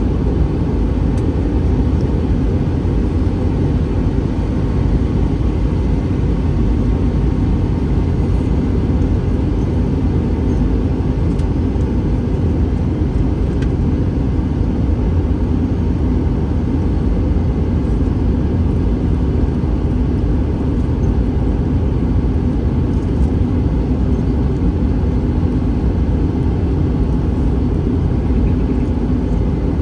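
Steady low rumble of cabin noise inside an Airbus A321 airliner: engine and airflow noise heard from a window seat, unchanging throughout.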